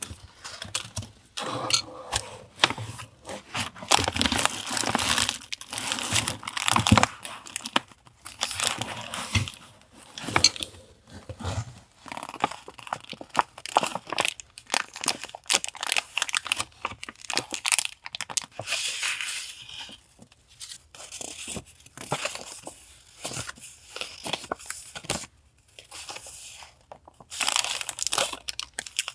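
Paper and packaging being handled up close: irregular crinkling and rustling with tearing and sharp crackles, in bursts separated by short pauses.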